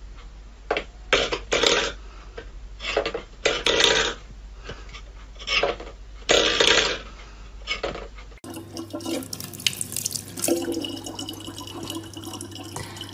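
A stainless steel bowl scraped and rattled across a wooden floor in a series of short bursts as a cat paws at it. About eight seconds in, this gives way to a thin stream of tap water running steadily into a plastic bottle.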